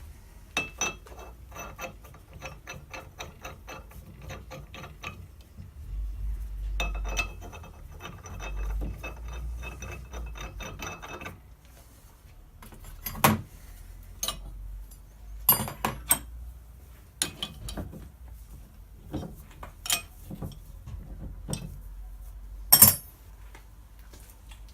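Ratchet wrench clicking in two runs of fast, even clicks, each lasting several seconds. After them come scattered sharp metallic knocks and clinks of tools and parts, the loudest one near the end.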